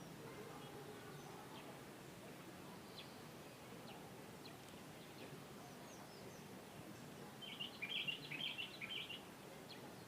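Wild birds chirping faintly over a steady low background hiss, with scattered single high chirps and a quick run of many short chirps near the end.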